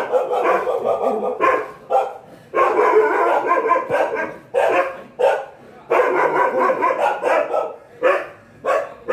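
Rajapalayam dog barking at an intruder in repeated bursts, in long rapid flurries mixed with single barks. This is guard barking, a warning to a stranger trying to get in.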